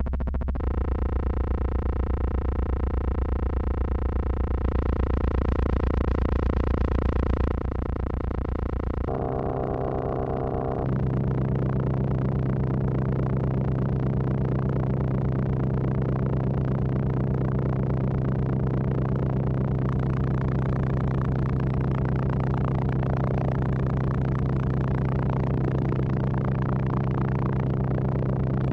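Nunomo Qun mk2 synthesizer holding a continuous buzzing drone while its settings are adjusted. The tone shifts abruptly several times in the first ten seconds or so, then settles into a steady low drone.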